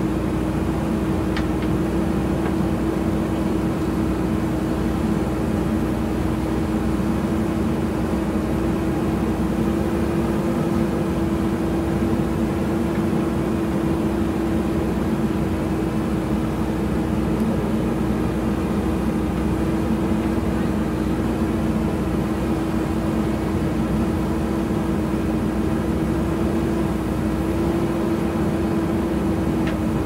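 JCB 3DX backhoe loader's diesel engine running steadily while the backhoe arm digs and lifts dirt: one constant hum that hardly changes in pitch or loudness.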